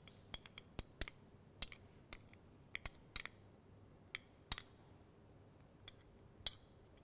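A spoon clinking and tapping against a blender jar and dishes as ingredients are spooned in: a scattering of light, irregular clicks.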